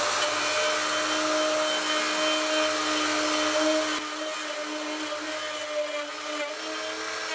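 Wood lathe running: a steady motor whine over a hiss, which drops abruptly about four seconds in.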